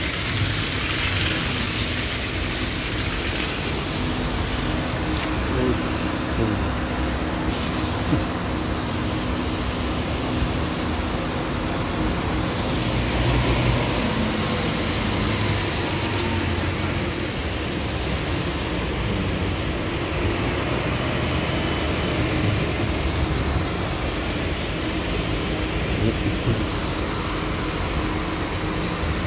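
Road traffic dominated by double-decker diesel buses running past and idling. A steady engine hum with tyre noise hissing on the wet road.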